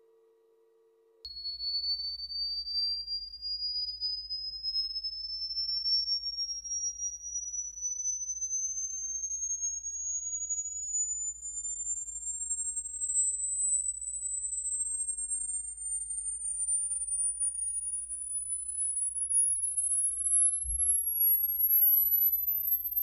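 A slow sine-sweep test tone from a pair of Jensen CS315 loudspeakers during a frequency-response measurement. It starts about a second in and glides steadily upward from a high whistle to a very high one, with a fainter tone gliding down the other way. A low rumble lies underneath, with a single low thump near the end.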